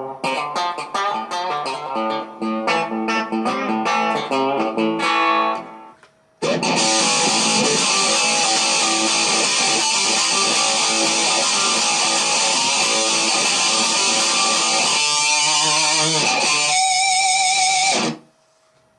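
Electric guitar from a DIY Telecaster kit played through a heavily distorted metal tone. First comes a picked riff of single notes for about six seconds. After a short break, a dense, loud, sustained wall of chords rings for about eleven seconds, its notes wavering near the end, then cuts off sharply.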